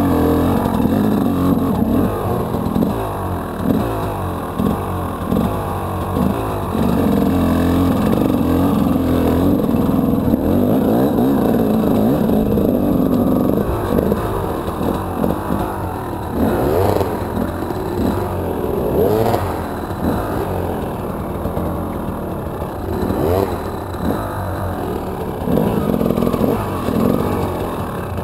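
Enduro dirt bike engine revving up and down under constantly changing throttle as the bike is ridden over rough forest ground, with occasional knocks from the chassis.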